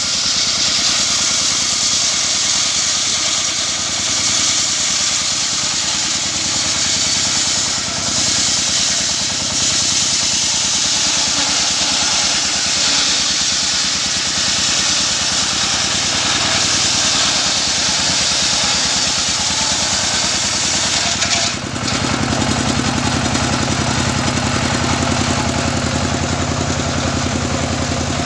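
Portable sawmill's large circular saw blade ripping through a gmelina log, driven by a stationary single-cylinder diesel engine running steadily underneath. About 21 seconds in, the cutting hiss stops suddenly and the engine's low, even firing comes to the fore as the blade spins free.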